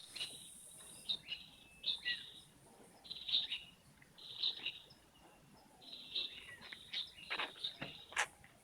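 Birds chirping in short repeated calls, with a faint high insect hiss in the background that fades about a second in; a few sharper, louder notes come near the end.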